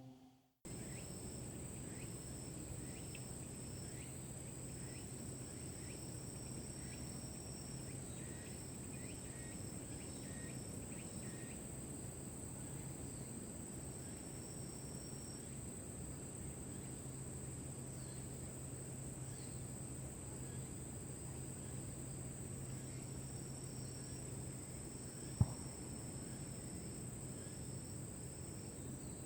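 Insects trilling steadily in a high, constant tone, with repeated short high chirps coming and going over a faint low hum. A single sharp click sounds late on.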